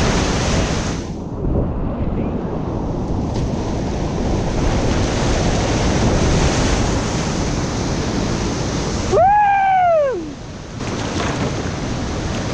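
Whitewater rapids rushing loudly, with wind buffeting the microphone; the rushing dulls briefly about a second in and again near the end. About nine seconds in, a person lets out a single whoop that rises and then falls in pitch.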